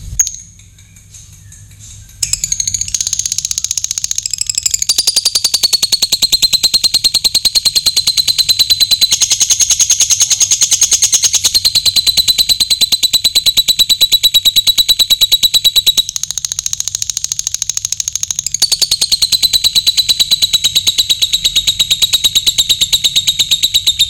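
A short knock right at the start. Then, about two seconds in, a lovebird's long 'ngekek' begins: one unbroken, very rapid, high-pitched chattering trill held for more than twenty seconds, shifting slightly in pitch a few times along the way.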